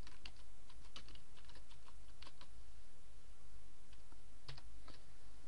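Computer keyboard typing: a quick run of keystrokes, then a pause and two more keys about four and a half seconds in, over a steady low hum.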